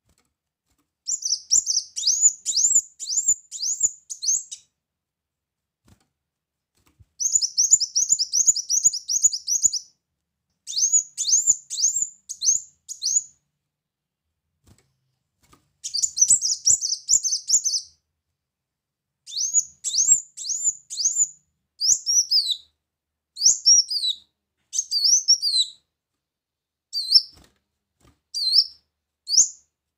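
Ruby-cheeked sunbird (kolibri muncang) singing: bursts of rapid, high-pitched chirping, many notes a second, separated by short pauses. In the last third the notes come singly or in short pairs, each falling in pitch.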